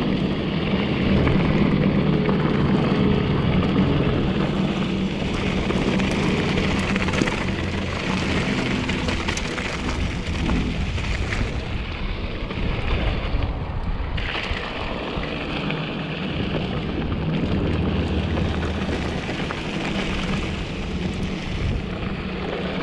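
A 2014 Giant Trance 3 mountain bike ridden down a rocky dirt trail: steady wind noise on the GoPro's microphone, with tyres rolling over dirt and rock and the bike rattling over bumps.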